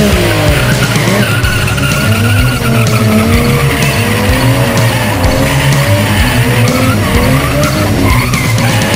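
Toyota Soarer drift car sliding, its tyres squealing on concrete while the engine note rises and falls with the throttle. Background music runs underneath.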